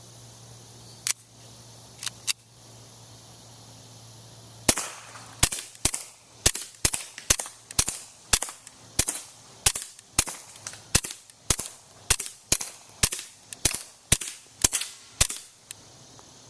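Suppressed gunshots: three single shots in the first few seconds, then a rapid string of about twenty shots at roughly two a second.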